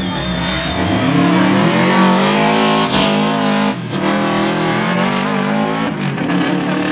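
Subaru Legacy rally car's flat-four engine accelerating hard past close by, its pitch climbing with the revs, cut by a gear change about three and a half seconds in, then climbing again to another shift near the end.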